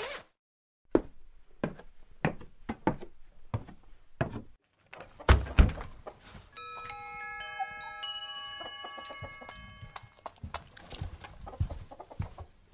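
Audio-drama sound effects: a string of knocks, a heavy thud about five seconds in, then chimes ringing several notes together for about four seconds, followed by more knocks.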